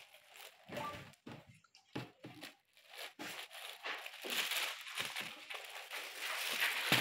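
Clear plastic packing bag crinkling and rustling as a folded t-shirt is slid into it, with a few short knocks; the rustling gets denser and louder from about halfway through.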